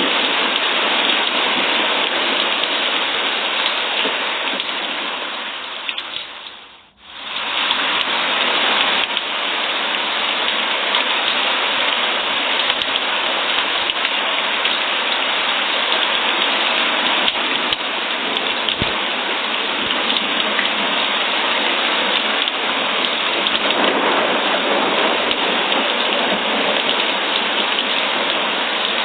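Steady rain falling, an even hiss of drops. About seven seconds in it fades down almost to nothing for a moment, then returns at once at full strength.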